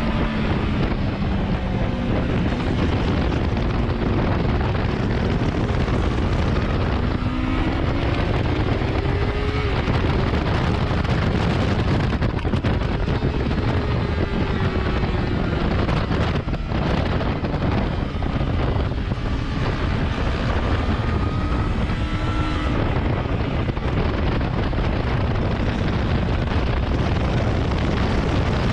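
2019 Yamaha R6 inline-four sport bike engine at track pace, its pitch rising through the gears with brief breaks at the shifts, then falling as the bike slows for a corner near the end. Heavy wind rush on the camera microphone runs under the engine throughout.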